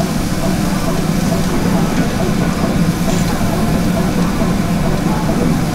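Steady low mechanical rumble with faint background voices.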